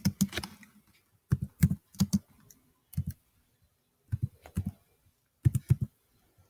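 Computer keyboard being typed on, keystrokes coming in about five short bursts of a few clicks each with brief pauses between.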